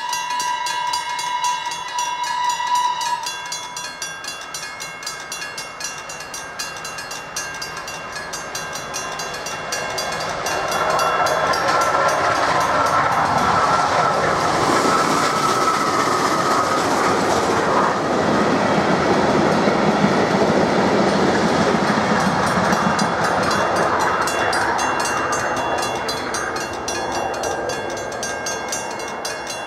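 Steam train whistle sounding one held note for about three seconds. The train then comes up and rumbles over the level crossing, loudest in the middle and easing off near the end. Over it all, the crossing's warning bell rings in quick, even strokes.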